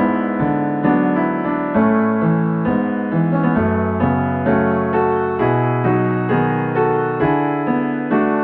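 Background music played on electric piano: gentle chords with a steady pulse, a new chord about once a second.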